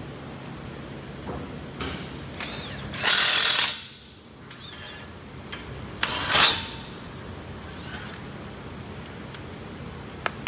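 A power wrench on a socket is run in two short bursts at a car's front brake caliper, about three seconds in and again about six seconds in. Light clinks of tools and parts come between the bursts.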